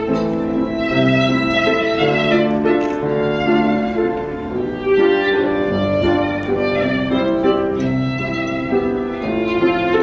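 A violin playing a classical melody with grand piano accompaniment.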